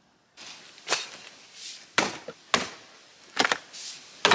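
An axe striking and splitting rounds of jarrah, about five sharp chops at an uneven pace, beginning suddenly about half a second in, with softer knocks and rustles of wood between them.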